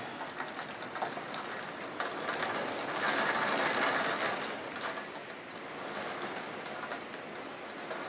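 Heavy thunderstorm rain falling steadily, swelling louder for a few seconds midway.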